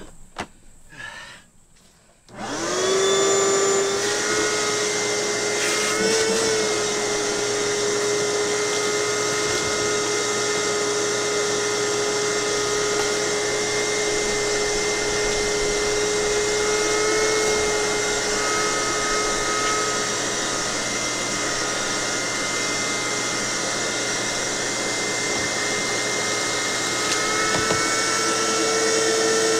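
A few knocks, then an electric motor starts about two seconds in and runs steadily: a steady whine over a hiss.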